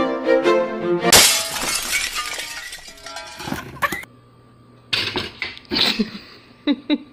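Violin music, cut off about a second in by a loud crash of something breaking, which rings and dies away over the next few seconds. After that, a quiet room with a faint hum and a few short sounds near the end.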